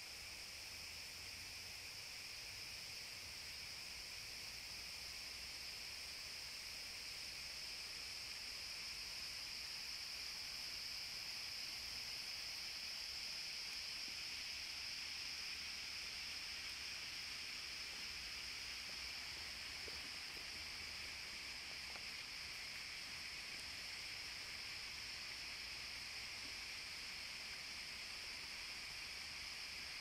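A steady chorus of insects makes a continuous high-pitched drone.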